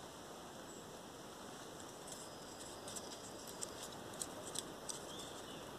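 Small fire of dry bamboo leaves and twigs crackling as it catches, with scattered sharp little snaps and ticks starting about two seconds in, over a faint steady hiss.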